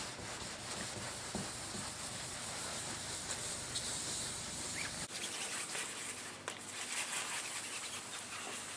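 Fine-grit wet sandpaper rubbed in circles on a plastic headlight lens: a steady, soft scratchy rubbing, with a sudden change about five seconds in.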